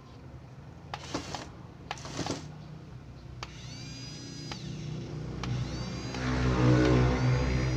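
Small electric motors and gearbox of a toy RC bulldozer whining as they run, with clicks in the first couple of seconds; the whine spins up several times and is loudest about six to seven seconds in.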